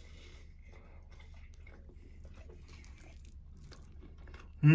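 Quiet chewing of a mouthful of steak and cheese pie, with soft crunching from the pastry. Near the end there is a short, loud vocal sound that falls in pitch.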